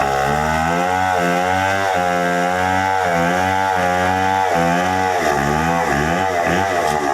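Chainsaw running at high throttle while cutting wood, its engine pitch sagging and recovering several times as the chain bites.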